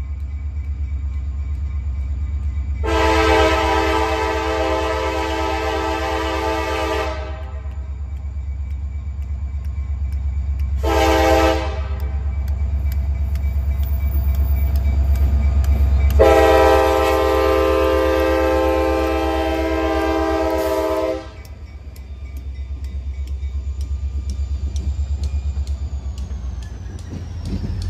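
Wheeling & Lake Erie freight train with two diesel locomotives sounding its multi-chime air horn for a crossing: a long blast, a short blast, then another long blast. The engines rumble steadily underneath as the locomotives pass close by. Near the end, after the horn stops, the hopper cars roll past.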